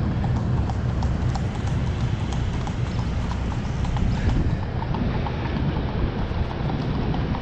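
A rope being hauled up hand over hand over a concrete bridge parapet, making a quick run of small clicks and taps. A steady low rumble lies underneath.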